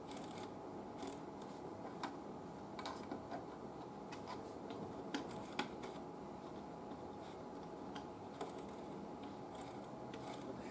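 Faint, irregular small clicks, a few seconds apart, from the controls of a 1940s Spiegel AirCastle tube radio being turned and handled: its switch and knobs clicking into place.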